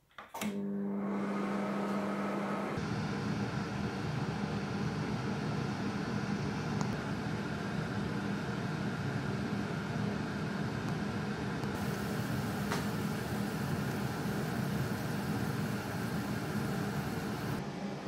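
Whirlpool microwave oven running on its crisp setting: a click as it starts, then a steady electric hum with fan noise.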